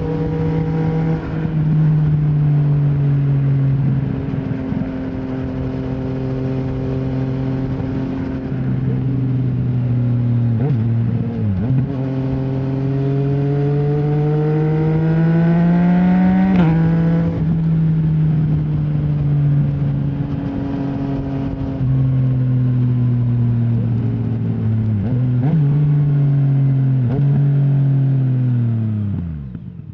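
2020 Yamaha MT-09's three-cylinder engine through an Akrapovic full-system exhaust with no dB killer, ridden on the road. It runs steadily, climbs in a long rising rev about halfway through that is cut by a sharp gear change, gives two short blips later, and its revs fall away near the end.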